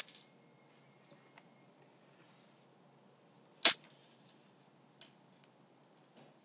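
Quiet room tone broken by a few short, sharp clicks: one at the start, a louder one about three and a half seconds in, and a faint one about five seconds in.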